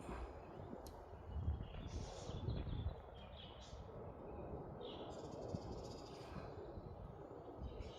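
Wild birds chirping in several short, high calls scattered through, over a low rumble that eases after about three seconds.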